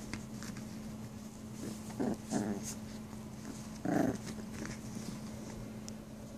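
Two puppies play-fighting, with short play growls: two about two seconds in and one louder one about four seconds in. A steady low hum runs underneath.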